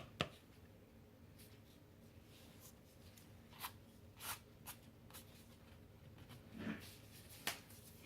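Faint, scattered light clicks and rustles of hands handling paint cups and the canvas during a flip-cup pour setup, against a quiet room.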